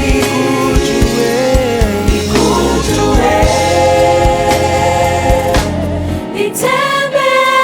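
Gospel worship music: voices singing long held chords over a band with steady bass and drum hits. Near the end the bass and drums drop out briefly and the voices come back on a new, higher held chord.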